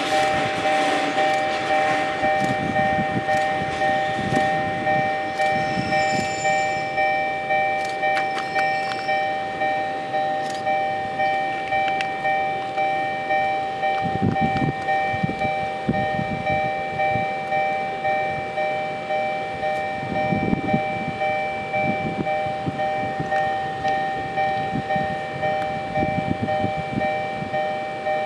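Japanese railway level-crossing warning bell ringing over and over at an even pace, each ring a steady, clear tone that dies away. Under it, the low rumble of Kotoden retro electric car No. 23 running off over the yard tracks.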